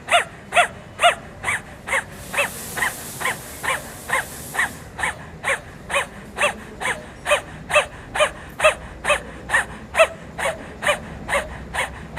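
Simhasana (lion pose) breath: forceful voiced exhalations through the wide-open mouth with the tongue stuck out, short rising-and-falling 'ha' sounds at an even pace of about two to three a second. A hiss joins in from about two to five seconds in.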